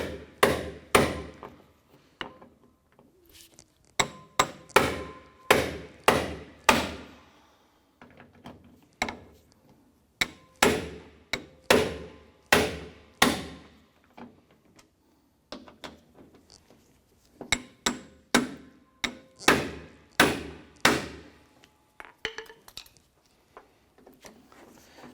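A hammer striking a hand impact screwdriver to break loose the car door latch screws: sharp ringing metal blows about half a second apart, in several bursts of two to six blows with pauses between.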